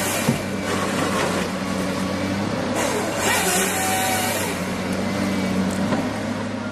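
Komatsu PC300LC-8 excavator running a Pro700 harvester head: the engine and hydraulics hold a steady hum while the head feeds and saws a log, giving two long rushing bursts, the second about three seconds in. A sharp crack comes just after the start.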